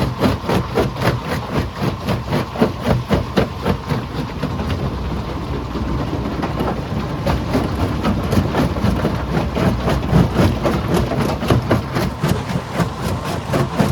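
Stone crusher machinery running, a steady low rumble under a rapid clatter of knocks, about four or five a second, that eases for a few seconds in the middle.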